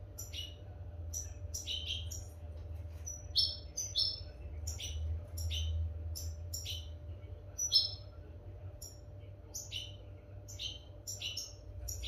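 European goldfinch singing: a quick, continuous run of short, bright twittering notes mixed with downward-sliding calls, over a steady low hum.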